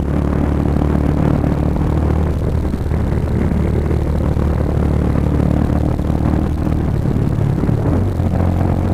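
Motorcycle engine running steadily at road speed, heard from the rider's own bike through a helmet-mounted camera; the engine's pitch dips slightly near the end.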